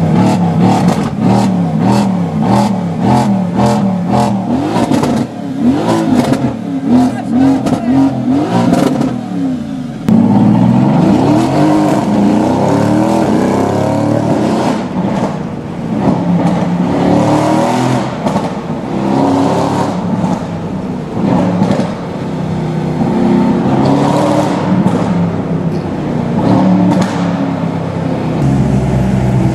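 Straight-piped Mercedes-AMG GT S twin-turbo V8 heard from inside the cabin, revved repeatedly with rapid exhaust crackles and pops for about the first ten seconds. About ten seconds in it goes hard on the throttle and accelerates, its pitch rising and falling through the gears.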